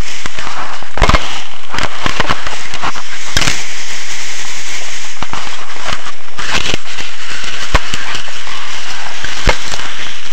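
Loud, irregular crackling and rustling right at the microphone, with scattered sharp clicks: the shiny strands of a pom-pom rubbing against the camera as it is handled.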